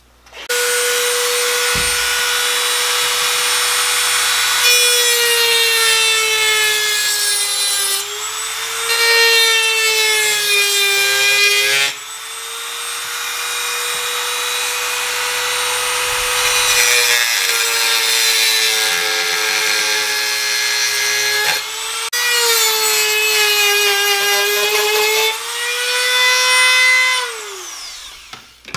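Dremel rotary tool with a diamond cut-off wheel grinding through a zeolite rock. It starts with a high motor whine that sags and wavers in pitch each time the wheel bears into the stone, over three long spells, then winds down near the end.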